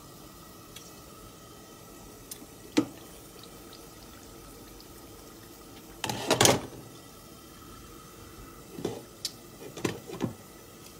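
Spiced curry base cooking in a covered wok on a gas stove, a steady low sizzle and bubble. A sharp click comes a little under three seconds in. About six seconds in a louder burst of noise comes as the glass lid is lifted, and near the end a few quick knocks come as the lid is set back on.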